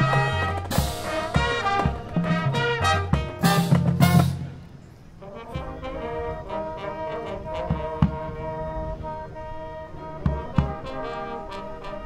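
High school marching band of brass, woodwinds and percussion playing: loud full-band brass chords with cymbal crashes and heavy low brass for the first four seconds, then a sudden drop to soft, held brass and woodwind chords with occasional light drum hits.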